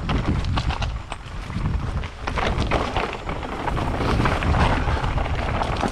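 Mountain bike rolling over a rocky trail: a constant run of irregular clicks and rattles from tyres and bike on stones, over a low wind rumble on the microphone.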